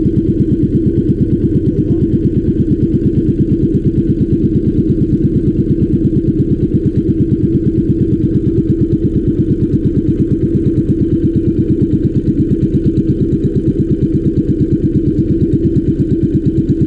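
Small boat engine running steadily while trolling, with a rapid, even putter.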